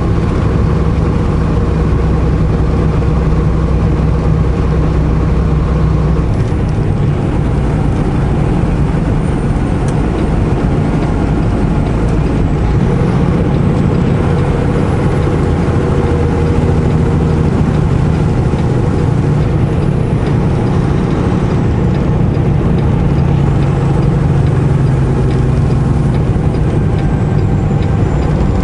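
Semi truck's diesel engine running steadily under way, heard from inside the cab along with road noise. The engine pitch shifts a few times as its speed changes.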